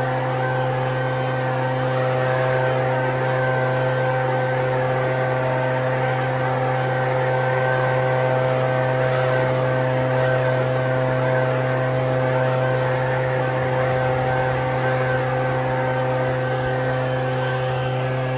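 Echo PB-9010T backpack leaf blower's two-stroke engine running at a steady speed, blowing soaked, matted leaves off the court.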